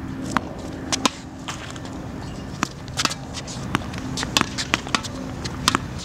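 Tennis-court sounds: irregular sharp knocks and clicks of tennis balls bouncing and being struck, several a second, over a steady low hum.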